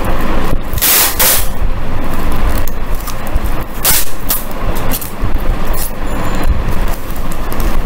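Adhesive tape being pulled off the roll in several noisy rips as it is wound around a cardboard handle strap. The longest rip comes about a second in, with shorter ones later, over rumbling handling noise.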